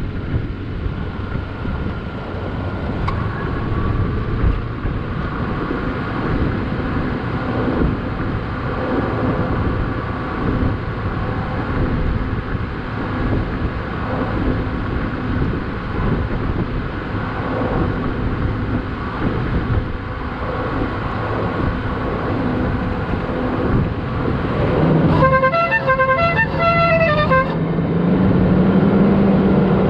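Vehicle engine running with wind buffeting the microphone. About 25 seconds in, a car horn sounds as a rapid run of short toots for about two seconds, and then a low engine drone grows louder and rises as a vehicle pulls away.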